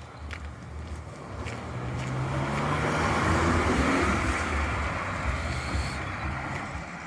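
A car driving past, growing louder to a peak about three to four seconds in, then fading away.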